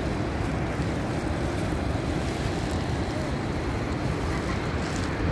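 Steady low rumble of wind buffeting the microphone on an open tour-boat deck, with the rush of river water around the boat beneath it.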